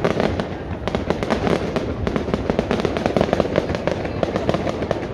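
Fireworks display going off: a dense, unbroken run of bangs and crackles, several a second.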